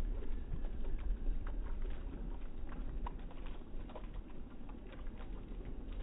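Thin water jets of a small park fountain pattering into a shallow basin, with short high ticks scattered throughout and a low rumble underneath.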